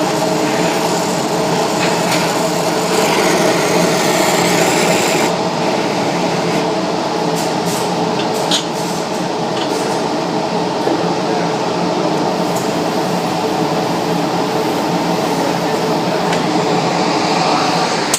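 Gas welding torch flame hissing steadily over a constant mechanical hum; the highest part of the hiss drops away about five seconds in.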